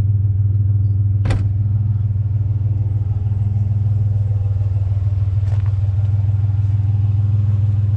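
Vehicle running down the road, heard from inside the cab: a steady low engine and road drone, with one sharp knock about a second in.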